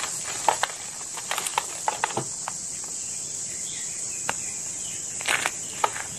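Moulded gym chalk being crushed and crumbled in bare hands: irregular dry crunches and crackles, thinning out in the middle and bunching up again near the end, over a steady high hiss.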